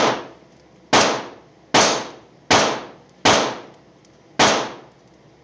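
A string of six gunshots from another shooter on the firing line, about one a second, each sharp crack followed by a short echo.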